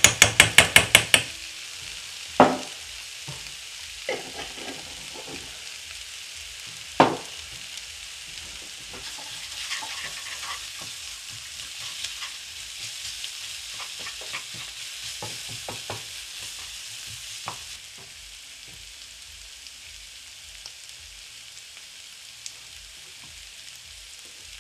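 Diced peppers and onions sizzling in a frying pan while being stirred and scraped with a wooden spatula. At the start a quick run of about a dozen taps as a spoonful of paprika paste is knocked into the pan, then two sharp knocks on the pan; the sizzle drops a little about two-thirds of the way through.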